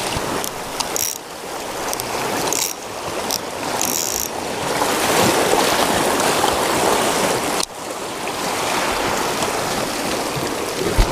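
Small waves washing around shoreline rocks, with rubbing and clicking of hands handling fishing gear right against the microphone. A few sharp crackles come in the first few seconds.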